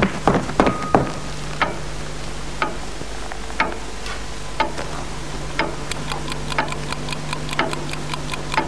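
Clock ticking about once a second, with a few quicker clicks at the start and a faster, fainter ticking joining about six seconds in, over a low steady hum.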